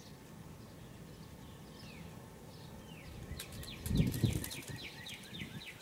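A small bird singing: a few faint falling chirps, then from a little past halfway a quick run of falling notes, several a second. A low thump about four seconds in is the loudest sound.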